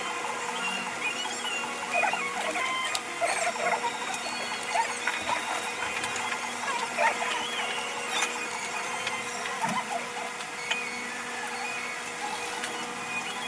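Real work sounds sped up five times: a steady hum under a fast jumble of chirpy, squeaky blips and a few clicks.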